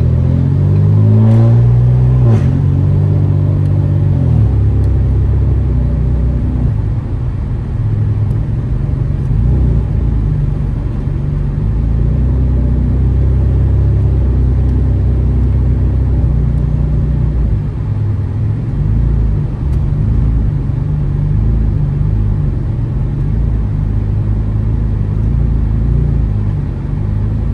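Straight-piped, catless exhaust of a 2015 Ford Taurus Limited under way. The engine rises in pitch for about two seconds, drops suddenly, then settles into a steady low drone.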